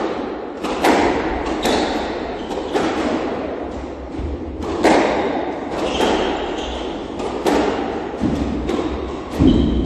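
Squash rally: the ball is struck by racquets and smacks off the court walls about once a second, each hit ringing out in the enclosed court.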